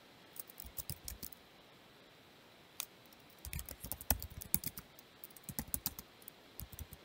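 Typing on a computer keyboard: a few keystrokes, a pause of about two seconds, then a fast, steady run of typing.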